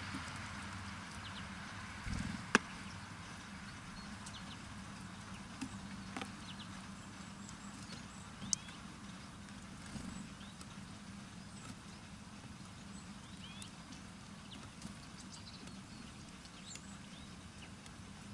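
Small birds at a bird feeder: scattered sharp taps and knocks of pecking and landing, the loudest about two and a half seconds in, with many short high calls throughout.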